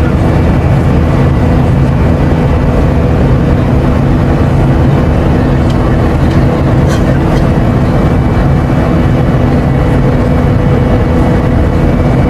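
Jet airliner cabin noise in flight: a steady, loud mix of engine hum and rushing airflow that does not change.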